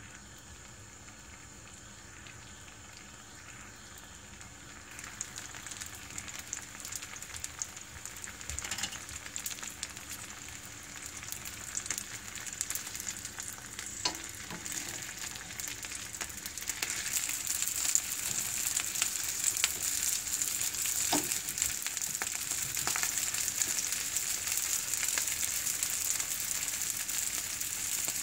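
Rice cake skewers frying in oil in a pan, sizzling steadily. The sizzle starts faint, grows louder about five seconds in and again around two-thirds of the way through, with a few light clicks.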